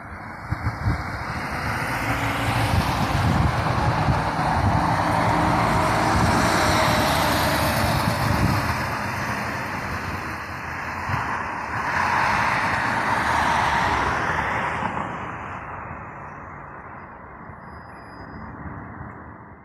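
Articulated city bus passing close by, its engine running over tyre noise on the road, then fading as it drives away. A second vehicle swells past around twelve to fourteen seconds in, and the traffic sound then dies down.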